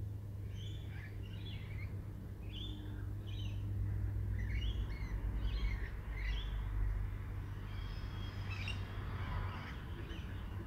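Sulphur-crested cockatoo calling repeatedly, short harsh calls in quick pairs about every two seconds, with a steady low hum underneath.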